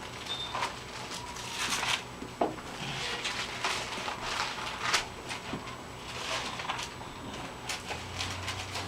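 Rustling and flicking of thin Bible pages being turned to find a passage, with scattered soft clicks and knocks.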